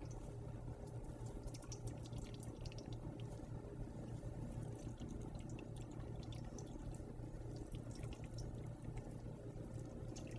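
Liquid dripping and trickling as wilted spinach wrapped in cheesecloth is wrung out, in many small irregular drops, over a steady low hum.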